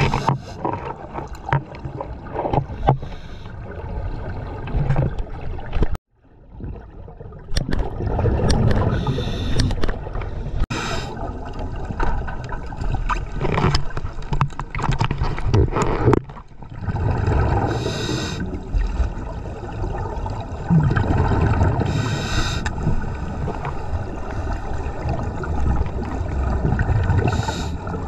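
Muffled, rushing water noise heard underwater, with several brief louder gurgling bursts of bubbles. The sound cuts out suddenly about six seconds in and then returns.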